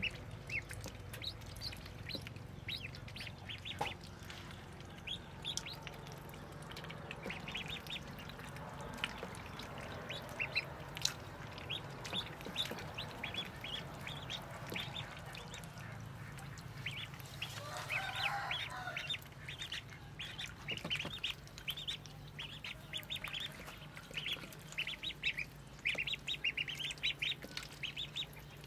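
A brood of ducklings peeping continually in many short, high-pitched calls. About eighteen seconds in, a brief, louder and lower burst of calling breaks in.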